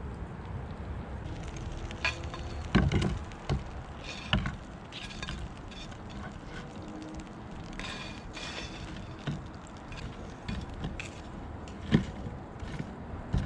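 Kitchen knife cutting barbecued lamb on a wooden cutting board: irregular knocks and clicks of the blade striking the board, the sharpest knock about twelve seconds in.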